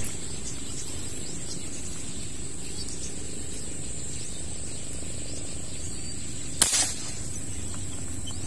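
Steady high insect whine over quiet outdoor background, then, about two-thirds of the way through, a single sharp shot from a CO2-powered airgun fired at a fish in the water.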